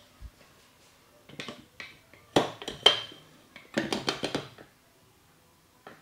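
Hands slapping a person during a massage: a few sharp slaps, two louder ones at about two and a half and three seconds, then a quick run of about eight strikes just before four and a half seconds.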